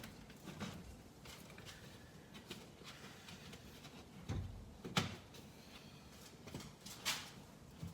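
Faint clicks and knocks of parts being handled and fitted by hand, with a few sharper knocks in the second half.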